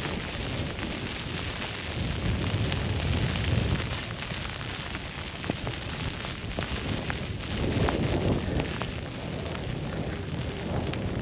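Wind buffeting the camera microphone in a snowstorm: a steady rushing noise with low rumbling gusts swelling twice. Scattered light ticks run through the second half.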